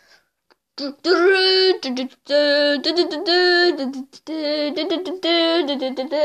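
A young female voice singing a wordless jingle, a run of short held notes that starts about a second in. It is a sung imitation of quiz-show music after a correct answer.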